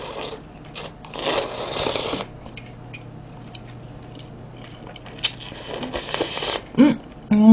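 A person slurping cold naengmyeon noodles from broth, three hissing slurps, the middle one about a second long, with a sharp click a little after five seconds.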